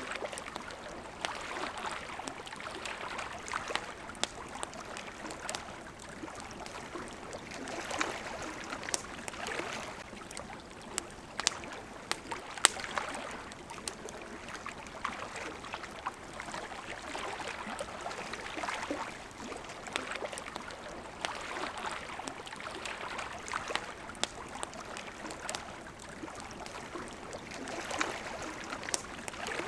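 Water lapping and flowing at the shore in gentle swells every few seconds. Sharp pops and crackles of a wood campfire are scattered through it.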